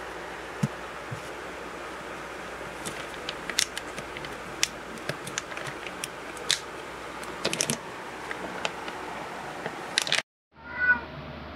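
Cat biting and tugging at a plastic cat-food bag: scattered sharp crinkles and crackles of the plastic, busiest in bursts a few seconds apart, over a steady hiss. It breaks off abruptly, and a short pitched sound follows near the end.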